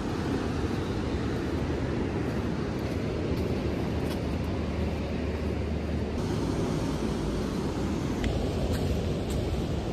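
Steady outdoor rumble of wind and ocean surf, with a few faint ticks near the end.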